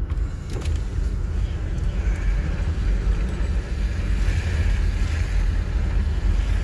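Steady low rumble of a car on a snowy highway, heard from inside the cabin: engine and tyre noise with a hiss above it. There is a brief click about half a second in.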